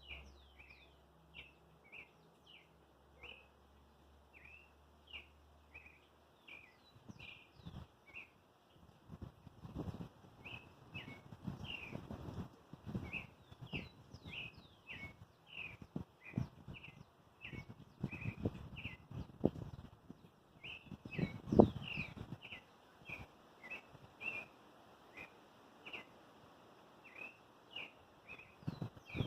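A sabiá (thrush) singing a long run of short, quick chirping notes, repeated about one to two times a second. Low rumbling thumps on the microphone come and go from about a quarter of the way in, the loudest just past the middle.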